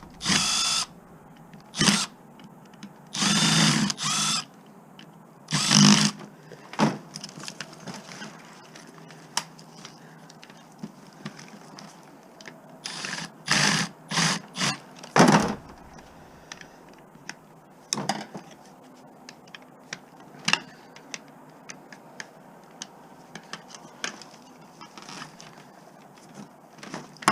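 Cordless drill-driver backing out screws in short bursts of motor whine, with sharp clicks and knocks of screws and parts in between.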